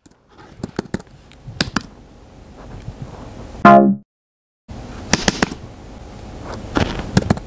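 Laptop keyboard typing: irregular key clicks, cut off a little over three and a half seconds in by a short, loud buzzy computer error alert tone. After a brief silence the typing starts again.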